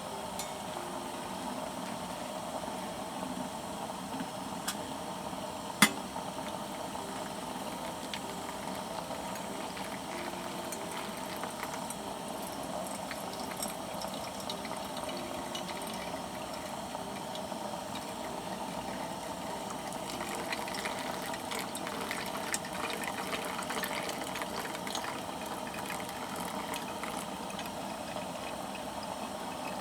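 Campfire burning with a steady hiss and scattered crackles, and one sharp snap about six seconds in.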